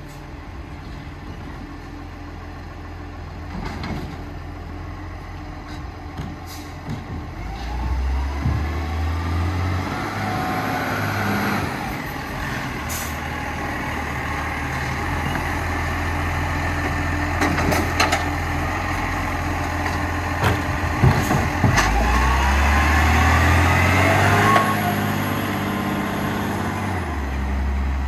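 Side-loader garbage truck idling, its engine revving up in two stretches to drive the hydraulic lifting arm, with a rising hydraulic whine and several sharp clanks.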